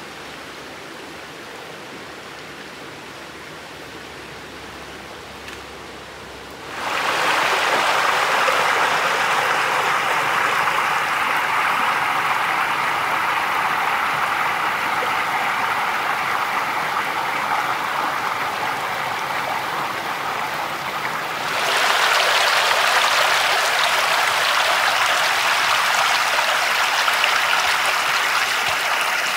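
Shallow stream water rushing over flat rocks. It is fainter at first, then suddenly much louder and close about a quarter of the way in, with another step up around three-quarters through.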